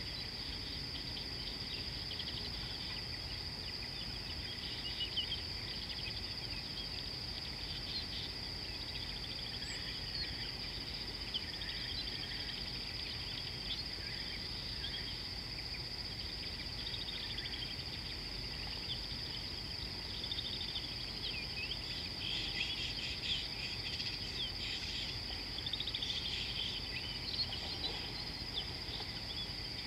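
Savanna ambience: a steady, high-pitched insect drone with many birds chirping and calling over it, the birdsong busier in the last third, above a low rumble of wind or microphone noise.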